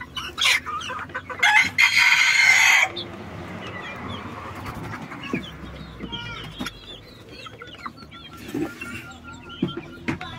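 A flock of young chickens clucking and peeping, with one loud crow lasting over a second starting about a second and a half in; short high peeps come thick in the second half.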